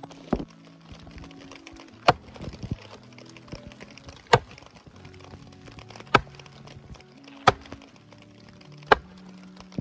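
Axe chopping and splitting a wooden log: sharp strikes about every one and a half to two seconds, with background music underneath.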